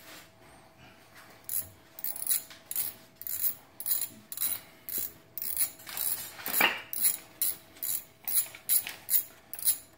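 Socket ratchet wrench clicking in quick repeated strokes, about two or three a second, as a 10mm bolt on the front brake caliper's plate is turned. The strokes start about a second and a half in.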